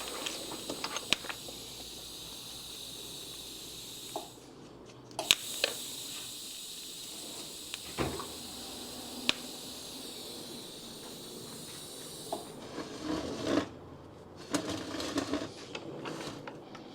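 TIG welding arc hissing and buzzing while tacking a plate onto a motorcycle oil tank. There are two arcs, one about four seconds long and then, after a short pause, one of about seven seconds that starts with a sharp crack. Light clicks and clatter of handling the work follow.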